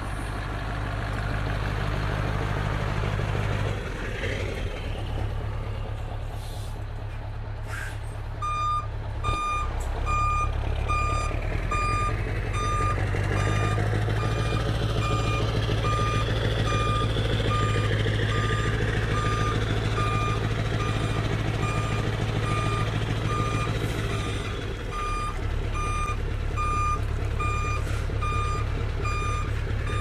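Scania 164L 580 V8 diesel with an open-pipe exhaust running at low revs, a steady deep drone that swells and eases a few times. From about eight seconds in, a reversing alarm beeps steadily, roughly one and a half beeps a second.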